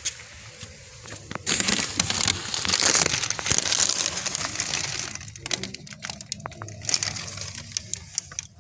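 Rustling and crinkling as objects are handled and rummaged through. The rustling is dense for a few seconds, then turns into scattered clicks and crackles.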